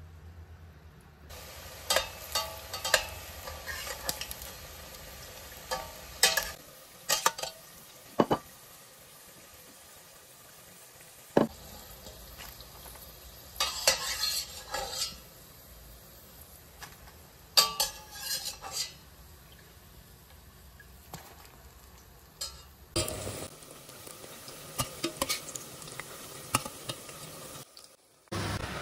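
A metal spoon clinking and scraping against a steel frying pan while cooked pakoras are lifted out of hot oil, over a faint sizzle of the oil. Near the end, a louder steady sizzle of battered pakoras deep-frying.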